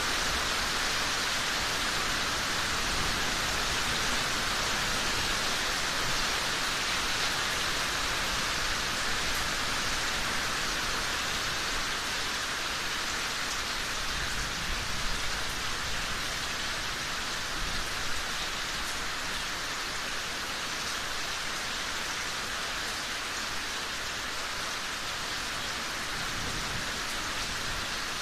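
Steady rain falling, an even dense patter with a few slightly louder spatters in the middle.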